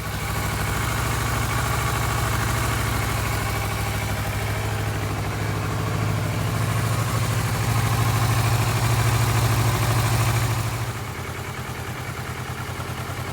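Motorcycle engine idling steadily, settling to a quieter idle about eleven seconds in.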